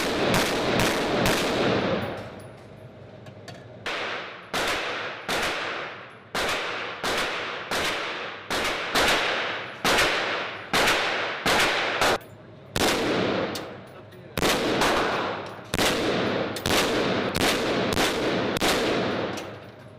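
Firearm shots fired in quick strings of about two a second, each with a ringing, echoing tail, with brief pauses between strings.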